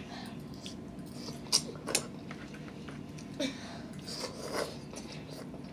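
Eating noises from cup noodles being eaten with forks: a few short slurps and chewing sounds, the clearest two about a second and a half and two seconds in. A steady low hum runs underneath.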